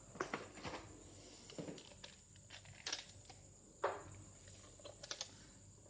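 Scattered clicks, taps and light rustles of tools and small parts being handled on a workbench, with the loudest knock about two-thirds of the way through.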